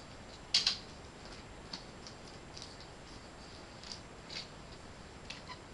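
Scattered light clicks and clacks of small plastic toys being handled and knocked together, with one sharper clack about half a second in.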